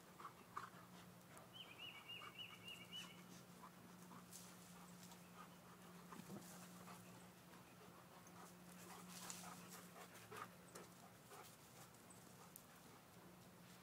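Two dogs, one an Anatolian shepherd, digging in loose garden soil: faint scratching of paws in the dirt and dog panting.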